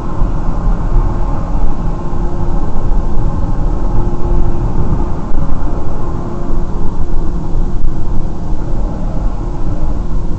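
Steady road and engine noise of a moving car picked up by a dash cam: a continuous deep rumble with a faint steady hum over it.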